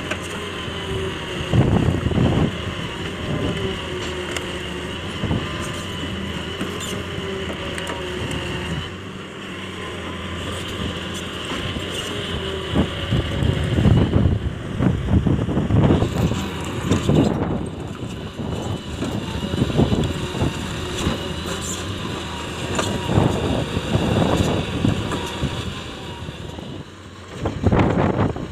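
Hitachi 200LC hydraulic excavator running, with a steady high whine over the engine and repeated louder surges of low rumble as it works.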